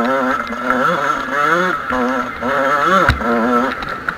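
Two-stroke Kawasaki KX motocross bike engine being ridden, its pitch rising and falling repeatedly with the throttle, with a single thump about three seconds in.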